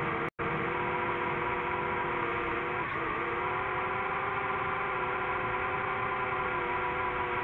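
DJI FPV quadcopter's motors and propellers whining at a steady pitch in flight, cut by a brief dropout about a third of a second in, with a small dip in pitch near the middle.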